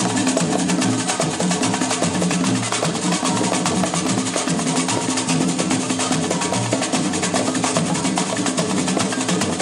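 Live samba percussion: tall hand drums played in a fast, steady rhythm of dense strokes, with no break.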